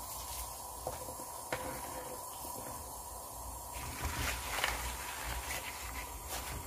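Pot of water at a rolling boil, bubbling steadily. About four seconds in, fresh butterbur stems and leaves are pushed into the boiling water, adding crackly rustling and sloshing.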